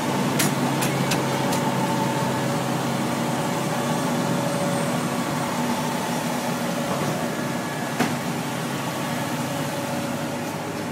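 Fire engine running steadily close by, a steady low drone. A few sharp clicks come in the first second and a half, and another comes about eight seconds in.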